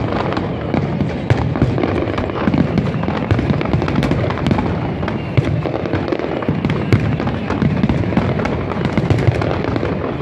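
Fireworks display at full barrage: many shells bursting in quick succession, a dense unbroken run of bangs and sharp pops.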